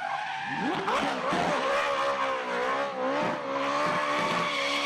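Racing car engine sound effect: an engine held at high revs with a slightly wavering pitch, with a few quick rising revs in the first second or so.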